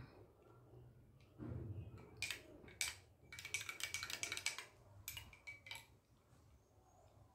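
A spoon stirring in a cup, tapping and clinking against its sides in a quick run of clicks, densest in the middle and tailing off near the end, after a short low muffled sound.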